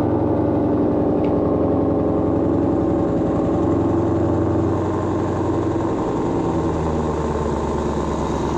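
2021 Shelby GT500's supercharged 5.2-litre V8 running at a fast idle just after starting up, the idle dropping and settling slightly about five seconds in.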